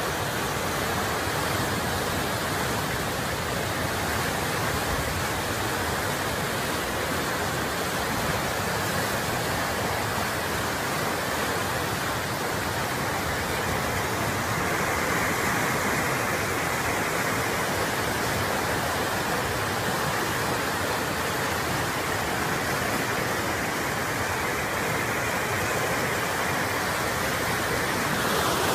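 Muddy flash flood torrent rushing past, a loud, steady wash of moving water.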